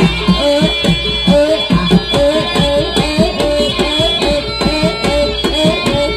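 Jaranan (kuda kepang) music: fast hand-drum strokes from kendang drums, many with a bending pitch, played over a higher melodic line.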